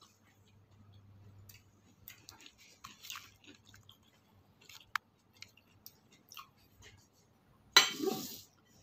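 A person chewing a mouthful of leafy greens close to the microphone, soft irregular clicks and smacks, with one sharper click about five seconds in. Near the end a loud sudden knock and clatter as the ceramic bowl is handled.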